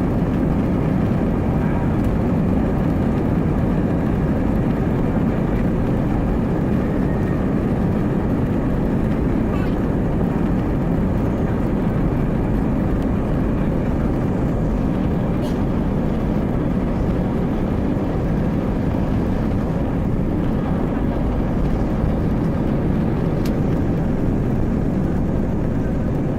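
Airbus A320-232's twin IAE V2500 turbofans running at high power during the takeoff roll, heard inside the cabin as a steady, loud rumble.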